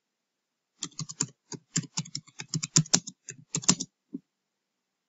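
Computer keyboard being typed on: a quick run of keystrokes starting about a second in and lasting about three seconds, followed by one more keystroke.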